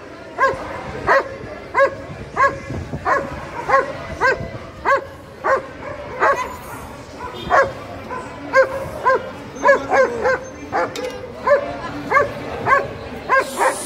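A dog barking over and over in a steady rhythm, about one and a half sharp barks a second, with a short break about halfway through.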